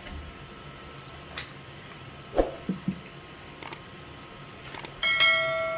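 A few knocks and taps, then a quick pair of clicks and a bell ding about five seconds in that rings on and fades: the sound effect of an animated subscribe button.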